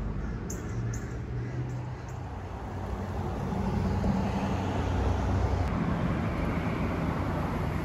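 Road traffic: a steady rush of passing cars that swells a few seconds in.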